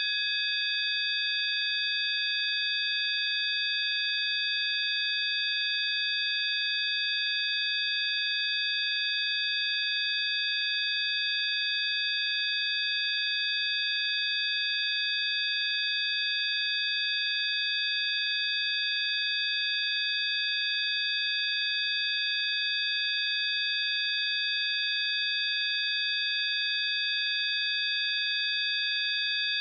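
Electronic sine-wave tones of a healing-frequency track: several high, steady pure tones sounding together without any change in pitch or loudness.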